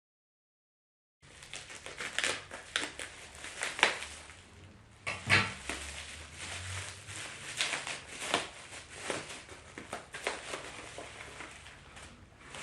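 Package wrapping being torn open and crumpled by hand: a dense run of irregular crackles and rustles. It starts after about a second of dead silence.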